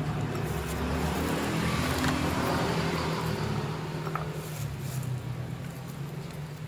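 Background traffic noise: a steady low hum with a rush that builds over the first two seconds and then slowly fades, as of a motor vehicle passing.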